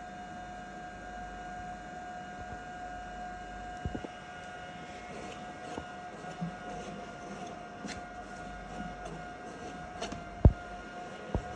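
Medical ventilator running with a steady high tone over a low hum, and a few sharp knocks of handling; the loudest knock is about ten and a half seconds in.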